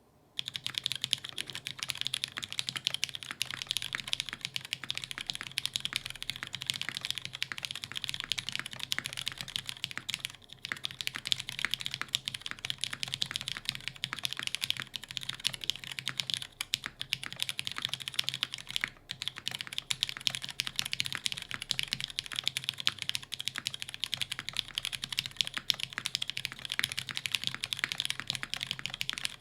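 Continuous typing on an Iron165 R2 mechanical keyboard with lubed Cherry MX Brown Hyperglide tactile switches on a carbon fiber plate with no dampening, under GMK keycaps: a dense run of key clacks that starts about half a second in, with brief pauses about a third and two thirds of the way through.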